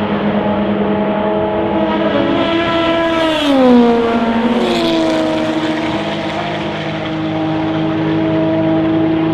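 Endurance-racing cars' engines at high revs, passing at speed. Their pitch falls twice in quick succession, about three and a half and five seconds in, as two cars go by, over the steady sound of other cars running.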